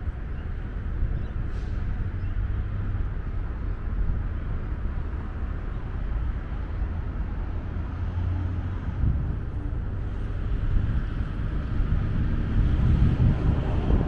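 Wind buffeting the camera's microphone with a fluctuating low rumble, over steady road traffic noise. The buffeting grows stronger near the end.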